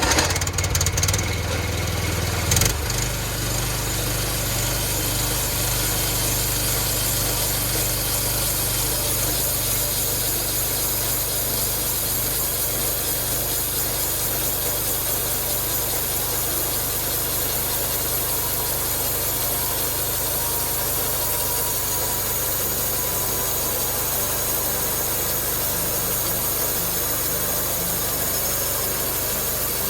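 Just-started, choked engine of a homemade sawmill running. It sounds different for the first few seconds, changes with a sharp knock about three seconds in, and then runs steadily.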